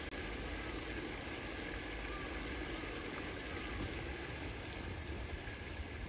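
Steady outdoor background noise: an even hiss with a low rumble, no distinct bird calls.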